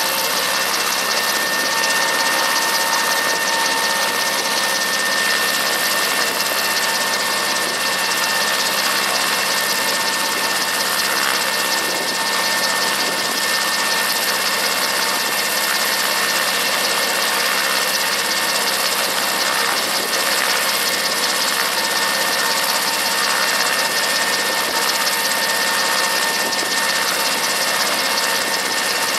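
Brantly B-2B helicopter's Lycoming four-cylinder piston engine running steadily at low power while the main and tail rotors turn slowly during start-up, with a steady high whine over the engine.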